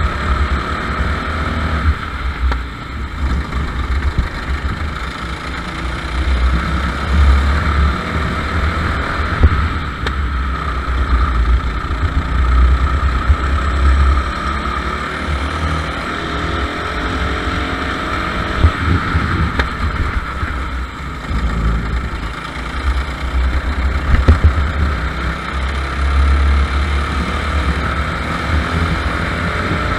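Racing kart engine running hard at speed, its pitch rising and falling as the kart accelerates and slows through the corners, with a heavy low rumble of wind buffeting the kart-mounted microphone.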